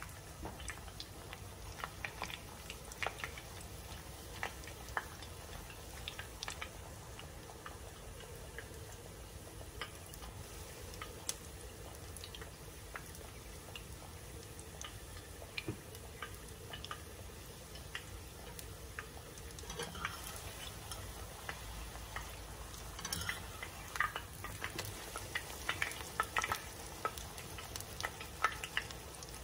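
A thin egg-like mixture frying quietly in a small nonstick pan, with a steady soft sizzle. A metal fork stirs and spreads it, clicking and scraping against the pan, more often near the end.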